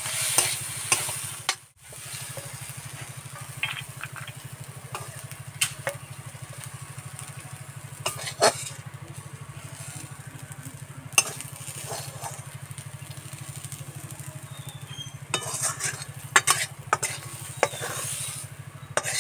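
A steel spatula stirring fried greens and scraping and tapping against a metal wok as they are scooped out onto a plate, with a light sizzle from the pan. A steady low hum runs underneath.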